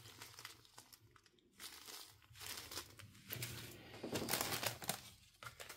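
Small plastic zip bags of diamond-painting drills crinkling as they are handled and laid down, in irregular bursts that grow louder about four seconds in.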